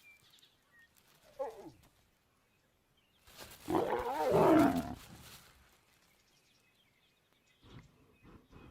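A lion snarls loudly for about two seconds, starting about three seconds in, after a shorter, quieter snarl about a second in. This is a warning to a male coming too close. Faint bird chirps can be heard near the start.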